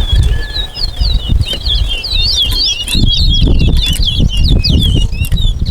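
Towa-towa (chestnut-bellied seed finch) singing one long, fast song of quick swooping chirps, the kind of song counted one by one in a bird singing race. Low rumbling noise runs underneath.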